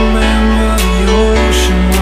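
Background music with a steady deep bass and held melody notes, with a percussion hit about once a second.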